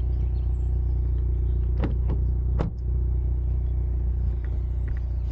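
Hyundai Veloster N's turbocharged four-cylinder engine idling steadily, with a few light clicks about two seconds in.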